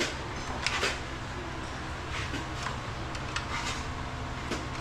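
Hand tools clicking and scraping on metal while bolts are worked loose on a motorcycle's gear shifter: a few short, scattered clicks over a steady low hum.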